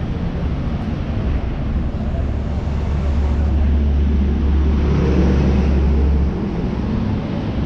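Street traffic with a low engine rumble, swelling a few seconds in and dropping away suddenly near the end.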